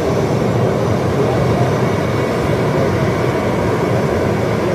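Twin Williams FJ44 turbofans of a Cessna Citation CJ1 business jet running at taxi power, a steady loud jet drone heard from behind the aircraft.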